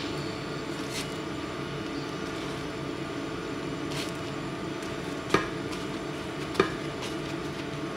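A spatula knocks against a nonstick frying pan twice, with two sharp clicks about five and six and a half seconds in, as it presses a puffed roti cooking in the dry pan. A steady low hum runs under it.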